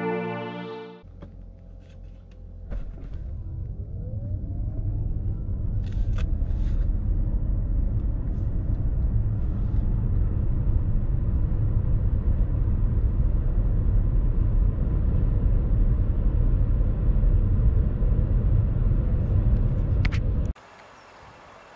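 Cabin noise inside a BMW 745e plug-in hybrid accelerating up to about 100 km/h: a steady low rumble of road and drivetrain noise, with a faint rising whine a few seconds in. It cuts off sharply near the end.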